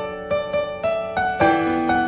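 Background music: a gentle melody of separate notes, a few notes a second, stepping upward in pitch around the middle.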